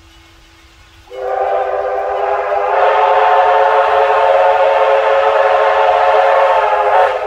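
Steam locomotive K163's Victorian Railways five-chime steam whistle sounding one long blast. The chord of several steady notes starts sharply about a second in, swells louder near three seconds and cuts off just before the end.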